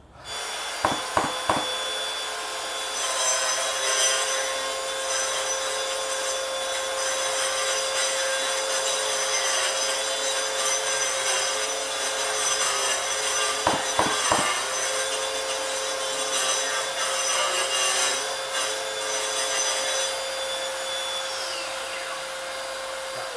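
Hilti DGH 130-22 cordless concrete grinder with a chamfer shroud, cutting a half-inch chamfer along the edge of a concrete wall: a steady grinding noise over a high motor whine. Near the end the whine falls away as the grinder is switched off and spins down.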